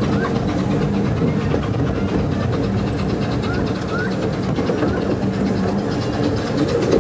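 12¼-inch gauge miniature steam railway train running along the track, its wheels rumbling steadily on the rails, with a few short high chirps in the middle.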